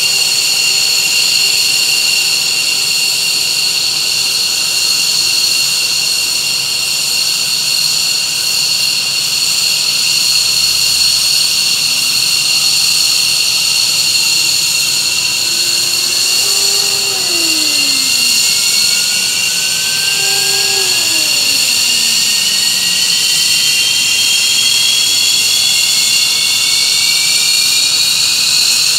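F-15 Eagle jet engines at start-up: a loud, steady high-pitched whine. Over the second half a further whine rises steadily in pitch as an engine spools up.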